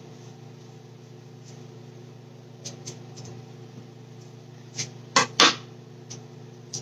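Steady appliance hum with a few sharp plastic snaps and rustles, the loudest pair a little after five seconds in, as blue disposable gloves are pulled on.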